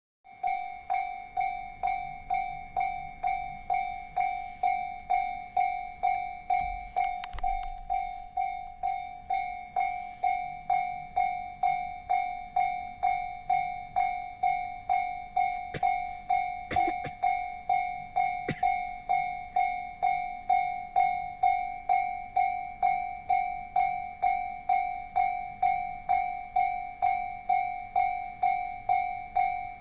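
Japanese railway level-crossing warning bell ringing, one clanging tone repeated evenly at about one and a half strikes a second: the crossing's alarm signalling that a train is approaching.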